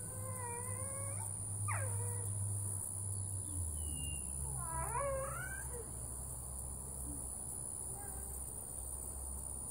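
A sleeping dog moaning: a long wavering moan that ends about a second in, a short falling one, then a rising, wavering moan about five seconds in. Crickets chirr steadily behind.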